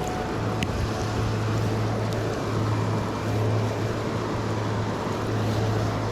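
Steady rush of flowing river water, with a low rumble that swells and fades throughout.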